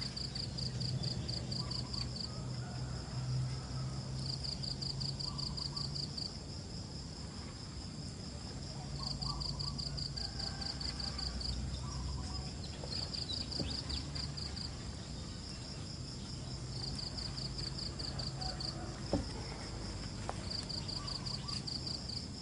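Insects chirping in repeated pulsed trills, each phrase a second or two long with short pauses between, over a steady high-pitched whine and a low steady hum. A single sharp click near the end.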